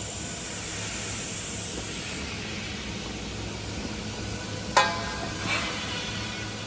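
Electric arc welding: a steady frying, sizzling crackle from the arc. A single sharp metallic knock comes nearly five seconds in, followed by a smaller one.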